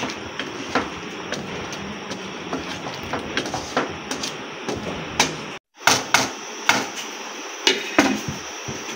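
A spatula knocking and scraping against a wok as chicken in thick gravy is stirred, in irregular clicks a fraction of a second apart. The sound drops out for an instant a little past halfway, and near the end a glass lid clinks onto the wok.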